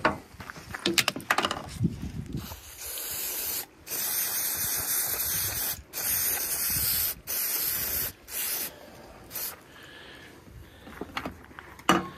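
Aerosol spray can hissing through its straw nozzle onto a mini chainsaw's chain sprocket, in several bursts with short breaks between them. Knocks of handling come before the spraying, with a sharp knock near the end.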